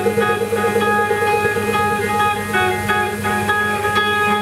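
Live improvised ambient noise music: electric guitars and electronics holding layered, sustained tones. The held notes shift to new pitches about halfway through.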